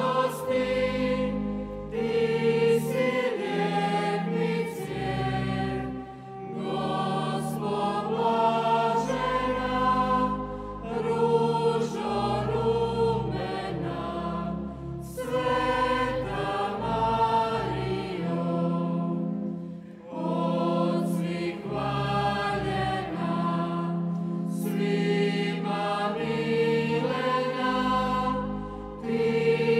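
Mixed church choir singing a hymn in parts with pipe organ accompaniment, the organ holding steady low notes under the voices. The singing pauses briefly between phrases.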